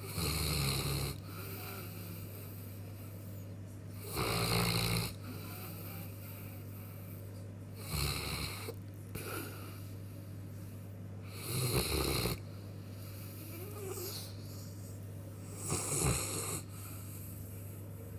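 Newfoundland dog snoring in deep sleep while recovering from a general anaesthetic: five loud snores, about one every four seconds, each lasting under a second.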